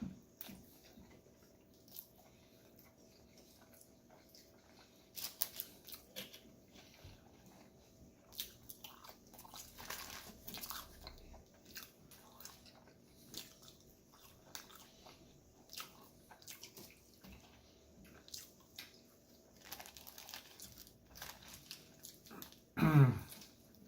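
Close-up chewing and biting of a McDonald's Daily Double burger, with scattered small mouth clicks and crunches. Near the end comes a short vocal sound that falls in pitch.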